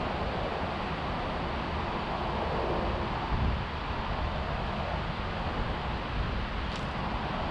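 Steady rushing outdoor noise, with wind buffeting the microphone in an uneven low rumble.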